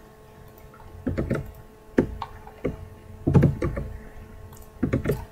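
Computer keyboard keys and mouse buttons being pressed: a scattered run of short taps and clicks, some in quick clusters, over a faint steady hum.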